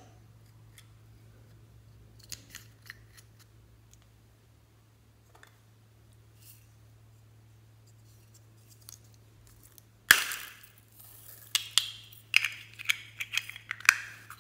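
Crisp crackling and snapping of a small soft-plastic packet being handled and worked open. It starts suddenly about ten seconds in with one loud crack, then a quick run of snaps and rustles follows. A few faint clicks come in the first few seconds.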